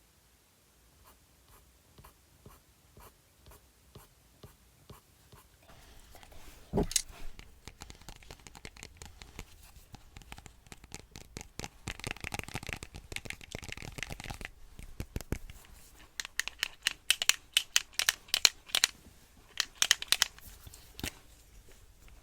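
Close-miked handling of art tools: soft taps about twice a second, a sharp knock, then a stretch of scratchy rubbing and a run of sharp crackling clicks near the end.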